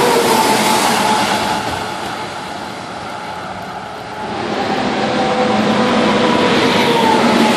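Highway traffic passing on a wet road: tyre hiss with a whine from a vehicle going by at the start, fading about two seconds in, then another vehicle building up from about four and a half seconds in.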